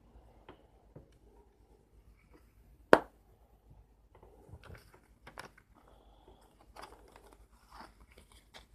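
A single sharp click about three seconds in as the metal case of a charcoal pocket hand warmer is snapped shut. Then paper rustling and crinkling with small irregular clicks as a folded instruction leaflet is handled and unfolded.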